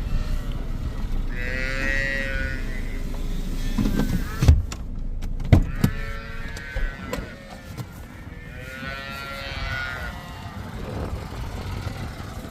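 Young dairy calves bawling in three high-pitched calls, with two sharp knocks in the middle.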